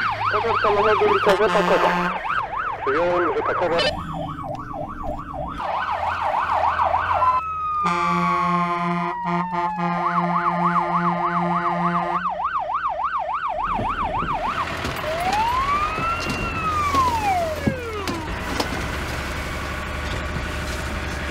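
Fire engine siren on a fast yelp, sweeping up and down several times a second. About seven seconds in, a steady pulsing tone and a falling whine break in, then the yelp returns. Near the end comes a single slow rise and fall of the siren, with the truck's engine running underneath.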